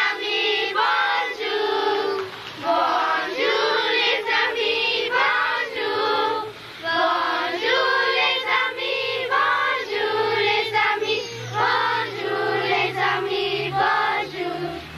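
A group of children singing a song together in short sung phrases with brief breaks between them.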